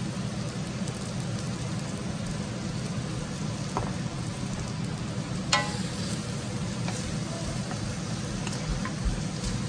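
Chicken pieces and sliced onions frying in an aluminium wok with a steady sizzle. About halfway through there is a sharp metallic clank that rings briefly, and near the end a wooden spatula stirs the pieces with light knocks and scrapes against the wok.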